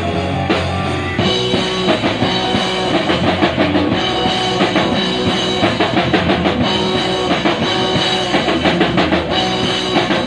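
Live rock band playing an instrumental passage: electric guitar repeating a riff over a fast, steady drum-kit beat.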